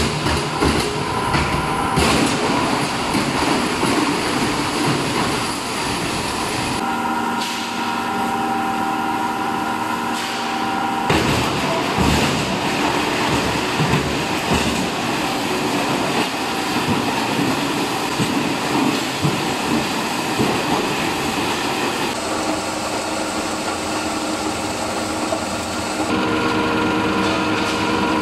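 Plastic pipe crusher running, its rotor chopping a white plastic pipe into flakes: a dense crackle of impacts over the steady hum of the machine, changing in character several times.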